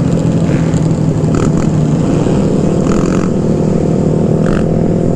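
Motorcycle engine running steadily at cruising speed, heard from the rider's seat, with wind rushing over the microphone.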